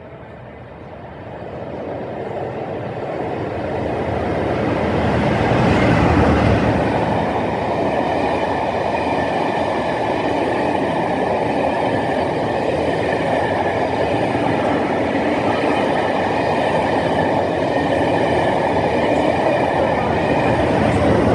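A train coming through the station: the rumble of its wheels on the rails swells over the first five seconds or so, then holds loud and steady as the train runs past.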